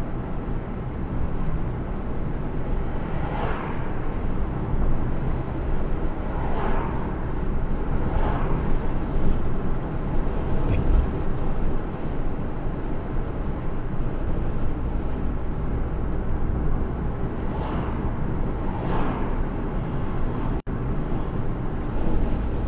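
Car driving on a road: a steady low rumble of engine and tyre noise, with five short whooshes of vehicles passing by.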